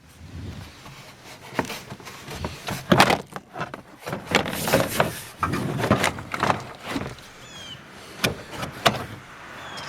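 Plastic push-on clips of a Toyota Sienna's inner door panel snapping loose as the panel is pried off the door, with several sharp snaps between scraping and rubbing of the plastic panel.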